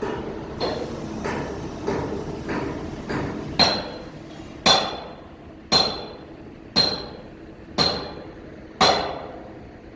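A hammer striking metal: several lighter blows, then six heavy ringing blows about one a second.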